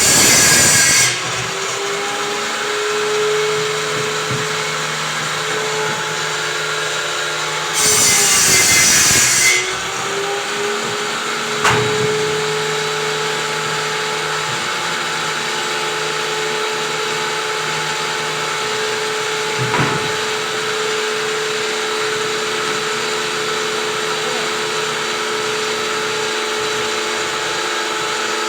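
Electric power saw running with a steady whine and cutting plywood twice, briefly at the start and again for about a second and a half some eight seconds in. Each cut brings a loud harsh rasp while the motor's pitch sags under the load, then recovers.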